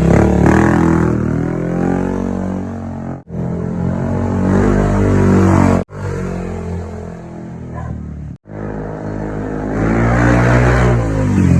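Yamaha Aerox v2 scooter's single-cylinder engine revved up and down several times through a JVT v3 aftermarket exhaust with its adjustable end bolt fully open, the pipe's loudest setting. The sound breaks off sharply three times between revs.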